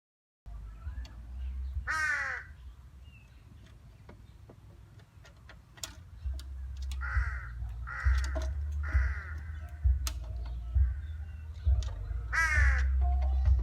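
Crow cawing about five times at irregular intervals, each caw harsh with a falling pitch, over a steady low rumble and a few faint clicks.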